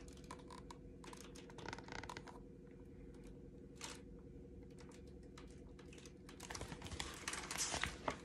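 Faint handling noise of a hardcover picture book: scattered soft clicks and light paper rustles, then a quicker run of rustles as a page is turned near the end, over a low steady hum.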